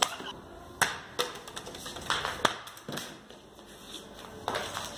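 Several scattered sharp knocks and taps from backyard cricket: a light ball and a child's bat striking the paved ground. The two loudest come right at the start and about a second in.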